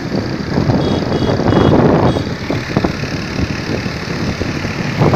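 A vehicle running on the move, with a loud, fluctuating rumble of noise.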